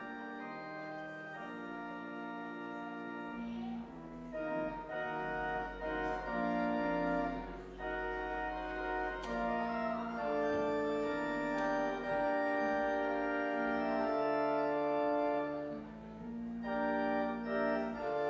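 Church organ playing the postlude: slow held chords, joined by deep bass pedal notes a few seconds in, after which the music grows louder.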